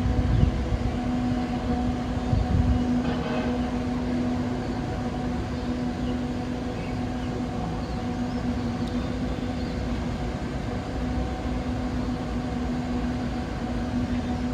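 A steady, low droning hum of one pitch with fainter higher overtones, over a constant rumbling background, with louder low rumbles at the start and about two and a half seconds in. It is presented as one of the mysterious 'trumpet' sounds heard in the sky.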